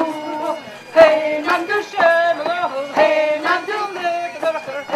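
Group of voices singing a chant-like waulking song, with the wool tweed thumped on the wooden table in time, roughly once a second.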